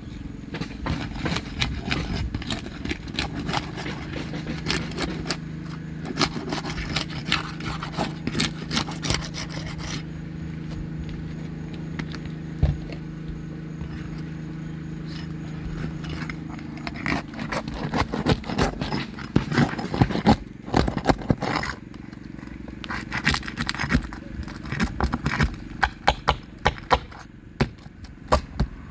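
Metal roof snake, a shingle-removal tool, scraping and clicking as it is worked under asphalt shingles to break their seal. The clicks and scrapes come thicker in the second half, over a steady low hum that stops for a few seconds past the middle.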